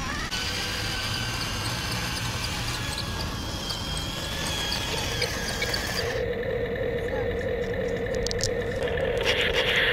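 Small electric motors of a remote-controlled toy tank whining steadily, the whine growing stronger about halfway through.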